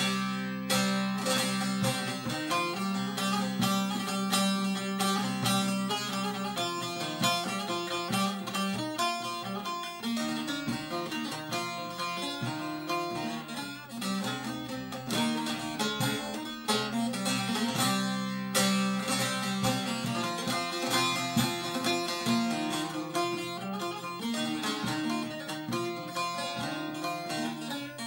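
Short-necked bağlama played solo with a plectrum: a folk tune of rapid picked notes over low notes held for a few seconds at a time. The instrument has just been repaired, its soundboard reworked to give more volume and a softer tone.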